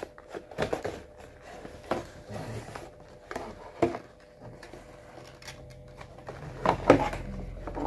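Cardboard packaging being handled: a white inner box scraping and sliding out of a brown cardboard outer box, with rustles and light taps, and a louder knock about seven seconds in.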